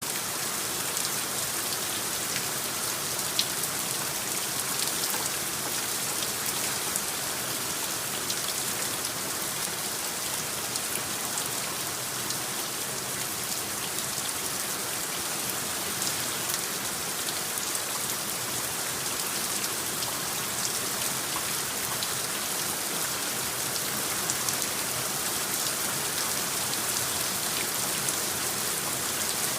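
Steady rain, from a designed rain soundscape: an even hiss with scattered sharp ticks of individual drops.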